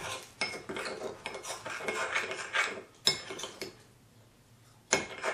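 A metal spoon stirring and scraping against a ceramic bowl as an oily salad dressing is mixed, with irregular clinks. It stops for about a second, then clinks once more near the end.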